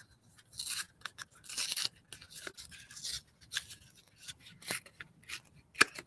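Cardboard packaging handled and pried open by hand, a sticker peeled back, giving irregular short bursts of rustling and scraping with scattered clicks. One sharp click stands out near the end.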